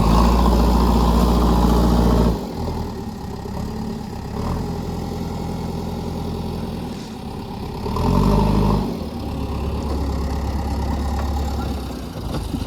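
JCB 3DX backhoe loader's diesel engine running at high revs for the first two seconds, then dropping to a lower, steady run, with a short rising rev about eight seconds in.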